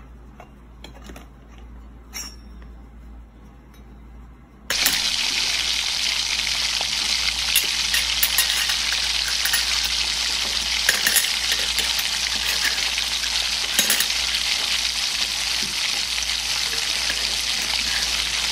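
A few light clicks from a small pot lid being handled. Then, about five seconds in, a loud steady sizzle starts suddenly as food fries in a miniature pan, with crackles and spoon stirring through it. The sizzle cuts off sharply at the end.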